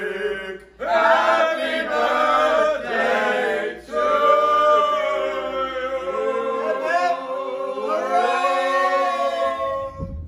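A group of men singing together, drawing out long held notes, with short breaks about a second in and near four seconds in.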